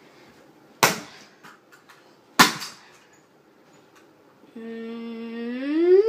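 Two hammer blows on a metal lock, about a second and a half apart, each a sharp strike with a short ring. Near the end comes a held, hummed voice note that then climbs steeply in pitch.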